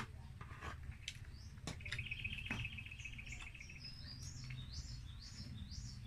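Small birds chirping: a fast, even trill lasts about two seconds, then gives way to a run of short falling chirps. Faint clicks and smacks of people eating fried chicken by hand come in between.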